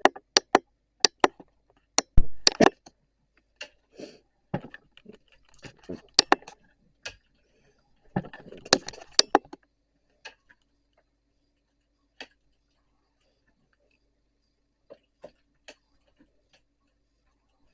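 A run of sharp, irregular clicks and knocks, the loudest about two seconds in, thinning out to a few faint clicks over a faint steady hum after about ten seconds.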